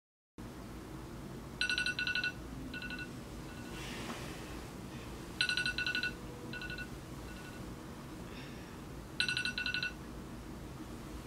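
Smartphone sounding an electronic ringtone: a fast trilling burst followed by two short beeps, repeating three times about every four seconds over a low room hum.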